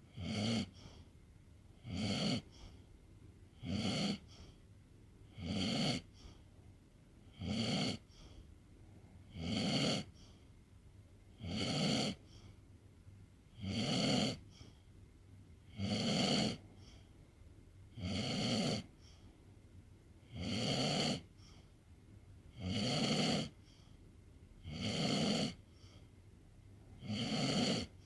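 A sleeping pet snoring steadily, one snore about every two seconds.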